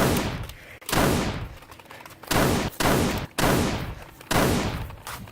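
A string of about six gunshots, irregularly spaced about half a second to a second and a half apart, each with a long echoing tail.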